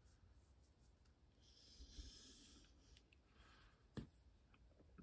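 Near silence: a faint breathy hiss about a second and a half in, and a single small click near the fourth second.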